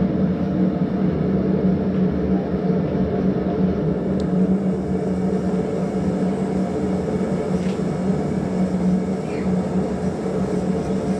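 Blacksmith's forge running: a steady rushing noise over a constant low hum, with no hammer strikes.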